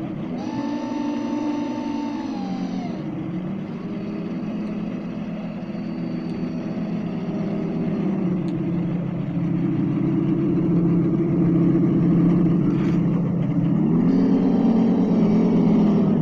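Radio-controlled model fishing boat running on the water with a steady engine-like drone. The drone drops in pitch about three seconds in and rises again near the end, and a higher whine rides on top over the first few seconds.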